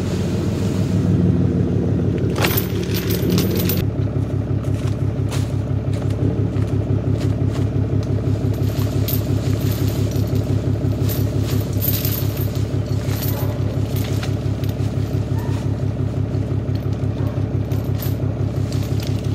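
An engine idling steadily nearby, its note shifting slightly about four seconds in. Over it, a steel log chain rattles and clinks as it is handled and dragged along the ground.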